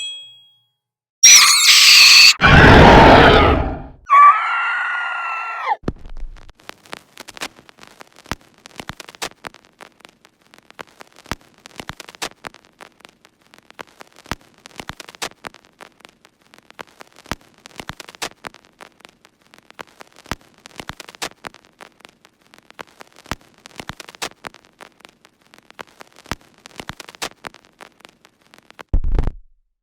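Horror sound effects: a loud scream of about three seconds, then a pitched wail that slides down and fades, then a long run of faint, irregular clicks and crackles, with a short low thud near the end.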